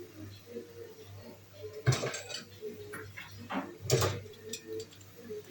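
Kitchen utensils knocking and clinking against dishes or a pot: two sharp knocks about two and four seconds in, with lighter taps between them.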